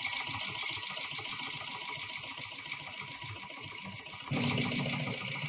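The bobbin winder of a HighTex 71008R heavy-duty bar tacking sewing machine spinning, winding thread onto the bobbin with a steady, fast rattling whir. A low hum joins about four seconds in.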